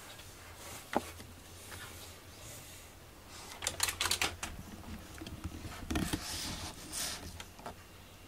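A black cat's fur rubbing against the camera and its microphone, making scratchy rustling and clicks: a single click about a second in, a quick run of clicks around four seconds in, and a longer scratchy rub a little later.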